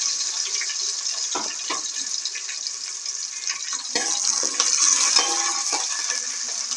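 Chopped onions sizzling steadily in hot oil in a metal pot, with a metal spoon scraping and clinking against the pot several times as they are stirred.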